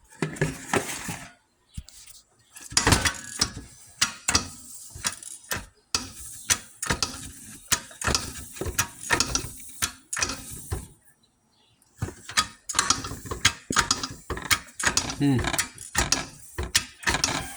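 Hand work with metal tools on a tractor engine: quick runs of metallic clicking and ratcheting, broken by short pauses about two seconds in and again near eleven seconds in.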